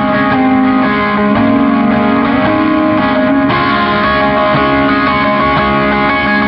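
Ambient guitar music: long, held, overlapping guitar notes, with the chord shifting partway through.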